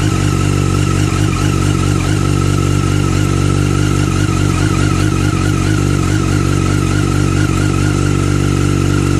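2008 Yamaha R1 inline-four engine idling steadily soon after a cold start, its pitch wavering slightly; the owner says it revs up and down like this until it warms up and settles.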